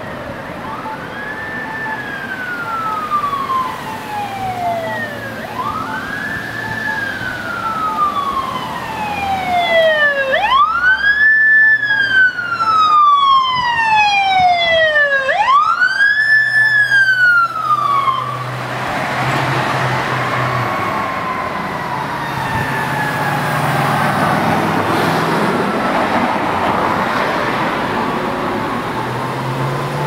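Emergency vehicle's electronic siren on wail, each cycle rising quickly and falling slowly, about every five seconds, growing louder as the vehicle approaches. About 18 seconds in it passes, the siren drops lower in pitch, and engine and tyre noise take over as the vehicle drives away.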